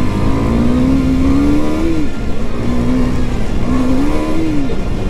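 KTM 390 Duke's single-cylinder engine accelerating hard through the gears. Its pitch climbs, drops at an upshift about two seconds in, then climbs and drops again near the end.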